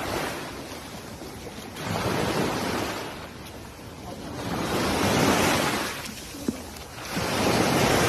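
Small sea waves washing up a sandy shore. Three surges swell and fade a few seconds apart, with a brief click between the second and third.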